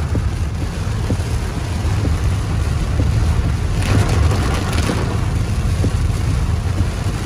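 Car cabin noise while driving through heavy rain: a steady low rumble of road and engine with rain rushing over the windshield. A louder rushing swell comes about four seconds in and fades a second later.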